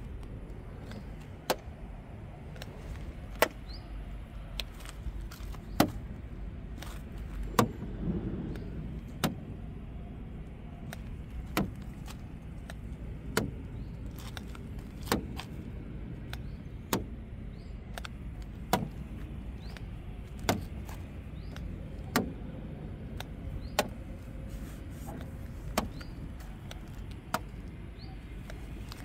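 Paint thickness gauge probe set against a car's steel body panels again and again, a sharp click roughly every one and a half to two seconds, over a steady low rumble.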